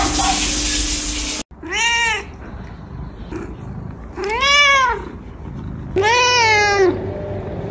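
An adult cat meowing three times, each meow rising and then falling in pitch, a second or two apart. Before the meows, a steady hiss cuts off abruptly about a second and a half in.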